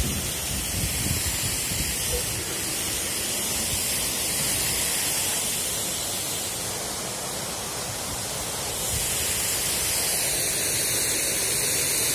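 Water rushing steadily over a small stepped stone weir in a fast-flowing river.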